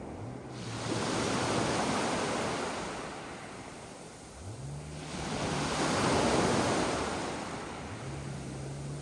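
Sea waves breaking and washing up a beach of sand and small pebbles. Two waves come in, each swelling to a rush and then fading away.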